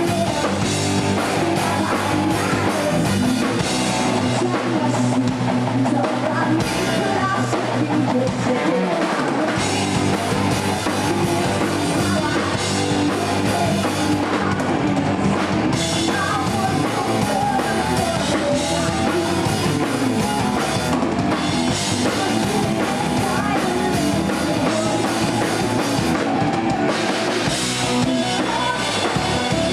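Live rock band playing: drum kit, electric guitar and bass in a steady full-band groove.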